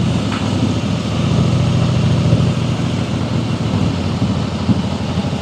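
Harley-Davidson Fat Boy's V-twin engine running under the rider with a steady, low pulsing rumble.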